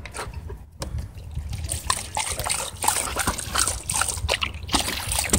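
Dog drinking from a water fountain, lapping and splashing water in a quick, irregular run of wet laps.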